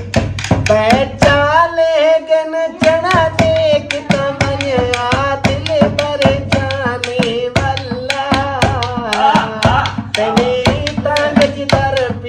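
A man singing a Punjabi folk song in long, wavering held notes, accompanied by a small hand drum beaten with the hand and a stick at about three to four strokes a second.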